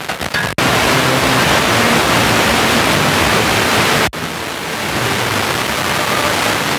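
FM radio static: a steady loud hiss from a phone's FM receiver tuned between stations while scanning up the dial, cutting out for an instant about half a second in and again about four seconds in as the tuner steps to the next frequency.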